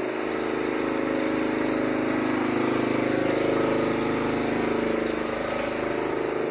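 A motor running steadily with an even hum.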